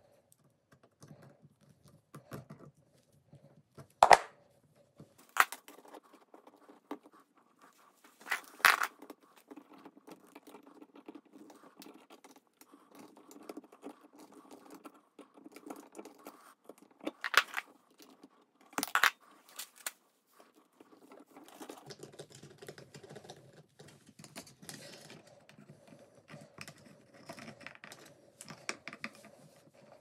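Solid copper house wiring being twisted into a pigtail with pliers: scraping and rustling of the stiff wire, with a handful of sharp clicks, and denser scratching near the end.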